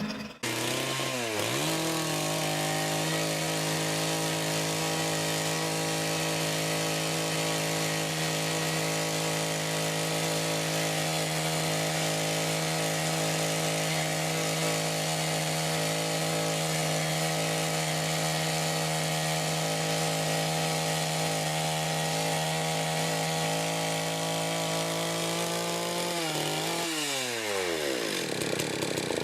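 STIHL KombiSystem power-head engine revving up to high speed in about a second, running steadily at full throttle for most of the stretch, then released near the end and winding down.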